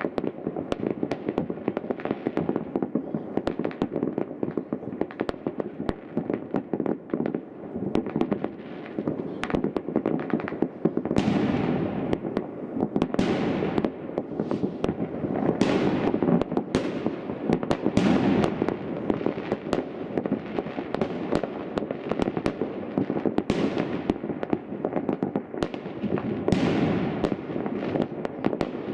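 Aerial fireworks display: continuous rapid crackling of many small star shells, with a run of louder shell bursts every second or two from about eleven seconds in.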